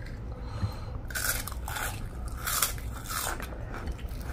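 Crunchy snack food bitten and chewed close to the microphone: about four dry crunches between one and three and a half seconds in.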